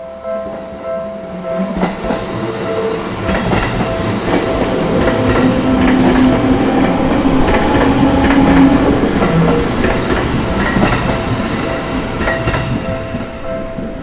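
Electric commuter train running through a Japanese level crossing, its wheels clattering over the rail joints. The sound swells to its loudest about halfway through and fades as the train clears. Under it, the crossing's electronic warning bell keeps up its rapid, even ding-ding.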